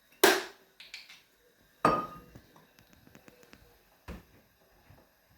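Kitchen ware clinking and knocking while oyster sauce is added to a sauce bowl: a sharp clink, then a second clink about two seconds in that rings briefly, a run of light ticks, and a dull knock near the end.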